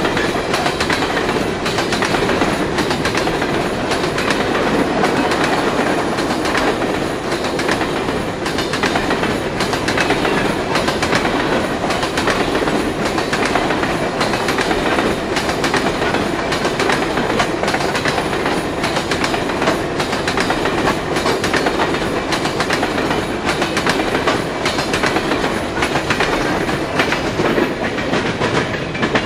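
Freight train of empty sulphur cars rolling past at speed: a steady rumble with rapid clicking and clatter of steel wheels over the rail joints.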